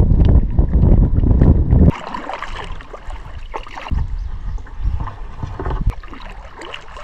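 Kayak paddle strokes in the water, with splashing and dripping from the blades. For about the first two seconds a loud low rumble covers it, then cuts off suddenly.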